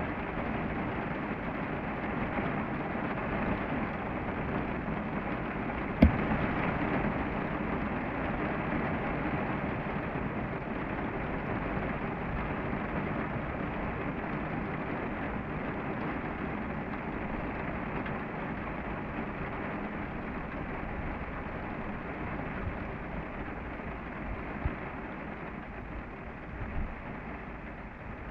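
Steady rain falling in a thunderstorm. About six seconds in there is one sharp crack of close thunder, followed by a short swell of rumble.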